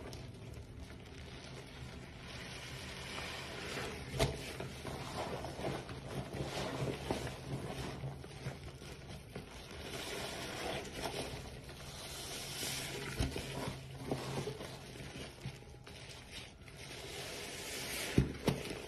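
Rubber-gloved hands squeezing and kneading a soapy sponge and thick lather: continuous wet squelching and crackling of foam, with a few sharper squishes.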